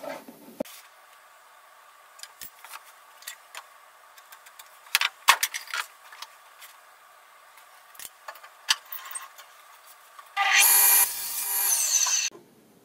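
Wooden pieces knocking and sliding as they are set on a table saw's crosscut sled, then, about ten seconds in, the table saw cutting through a board for about two seconds, loudest at the start and cutting off suddenly.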